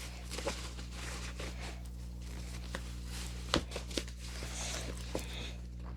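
Fabric rustling and scuffing as long socks are pulled up the legs, with a few soft clicks, over a steady low electrical hum.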